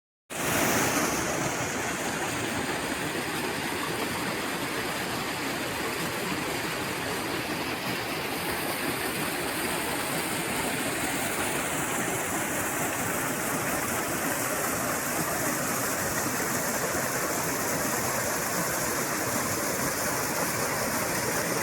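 Small forest brook babbling steadily.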